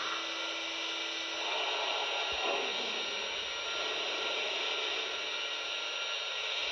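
O-gauge model train running on the track: a steady hiss with a busy mechanical rattle of wheels and gearing.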